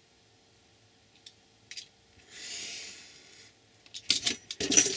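Craft knife drawn through paper along a steel ruler on a cutting mat: one scratchy cutting stroke of about a second in the middle. Near the end come sharp clicks and a metallic clatter, the loudest sounds, as the ruler and knife are handled.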